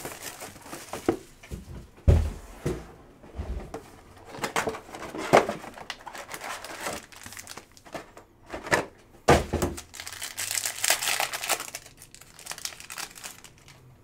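Plastic wrap and foil card-pack wrappers crinkling and tearing as a 2023 Panini Certified football hobby box is cut open and its packs pulled out and ripped open, with a couple of knocks from the cardboard box, about two seconds in and again about nine seconds in, and a longer stretch of crinkling near the end.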